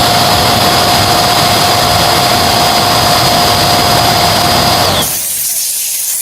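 A power tool's motor running steadily with a high whine over a loud rush of noise. About five seconds in, the whine dips slightly and stops, leaving a quieter hiss.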